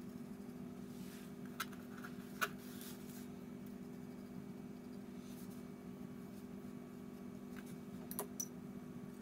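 A fine watercolour brush working on a paper postcard: a few light clicks and short soft scratchy strokes over a steady low hum.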